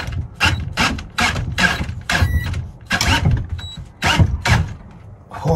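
Cordless drill driving a long screw through a bench vice's base into a wooden bench, labouring in repeated short bursts about three times a second as the screw grips hard in the wood.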